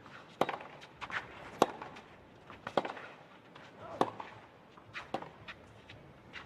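Tennis rally on a clay court: racket strikes on the ball ring out as sharp cracks about once a second, with fainter knocks in between.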